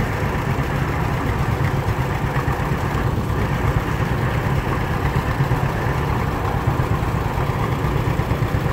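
Vintage John Deere two-cylinder tractor engine running at a low, steady speed as the tractor drives slowly past, with an even, pulsing beat.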